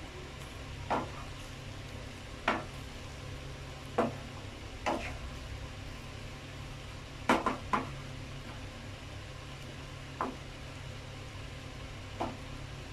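Spatula knocking and scraping against a non-stick frying pan while fried chicken wings are tossed in a thick honey barbecue sauce: about nine separate knocks, a quick run of three a little past the middle, over a low steady hum.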